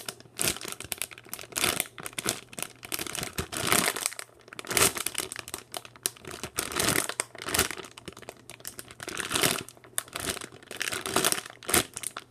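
Plastic packaging of a squishy crinkling in irregular rustles as it is handled.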